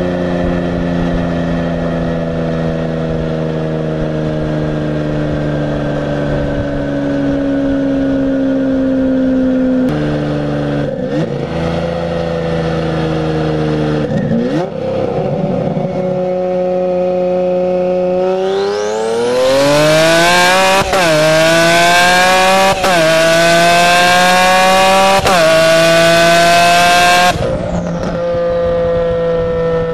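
A car's engine and exhaust, at first holding a steady, slowly falling pitch. About two-thirds of the way in it goes to hard acceleration: it gets louder and the pitch climbs with three quick upshifts. Near the end the throttle is lifted and it settles back to a steady cruise.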